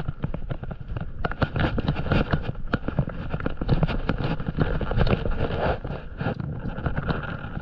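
Small waves slapping irregularly against the hull of a stand-up paddle board, a quick run of sharp knocks, with wind buffeting the microphone.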